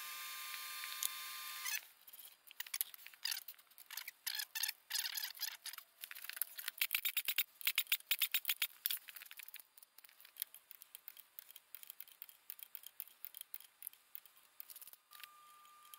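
Hand ratchet wrench clicking in quick runs as bolts are turned down on a small three-cylinder diesel's cylinder head, the fastest runs in the middle. A steady hiss with a faint whine cuts off about two seconds in.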